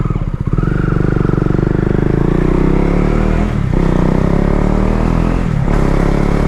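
KTM Duke 250's single-cylinder engine running loud through a cheap Akrapovic-replica aftermarket exhaust, moments after starting. The firing beats are distinct at first, then smooth out, with two brief dips in the engine note.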